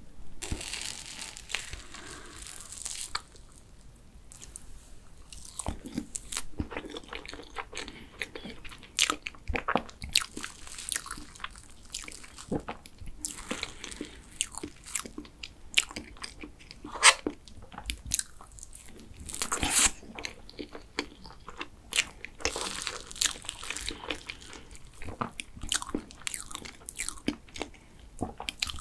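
Close-up eating sounds: a spoon clicking and scraping in a clear plastic box of soft tiramisu cake, and chewing of the cake.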